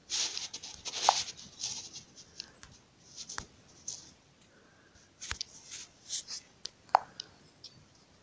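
Irregular scratchy rustling with scattered clicks, and two sharper clicks about a second in and near the end.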